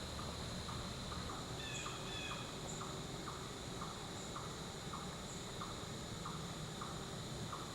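Autumn woodland insects: a steady high-pitched drone with a short chirp repeating about twice a second. A brief bird call breaks in about two seconds in.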